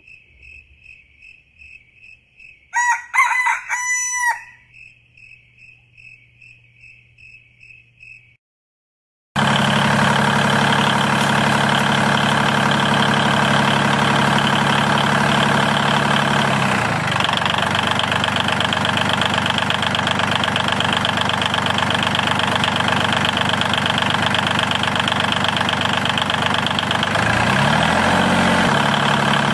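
A rooster crows once over a faint, steady rhythmic chirping. After a brief silence, a loud, steady engine-like running sound starts and holds, dipping in pitch twice.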